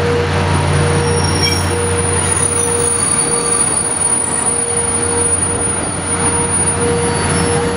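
Train running with a steady low rumble and hum, and a thin high-pitched squeal that sets in about half a second in and holds steady.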